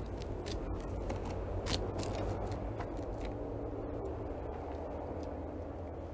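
Steady low outdoor rumble, with a few light clicks and scuffs in the first couple of seconds as a person settles onto a concrete step.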